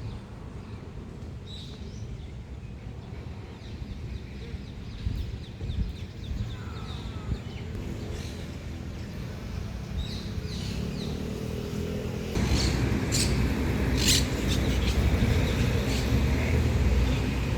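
Birds chirping now and then over a steady low background rumble, which gets louder about twelve seconds in.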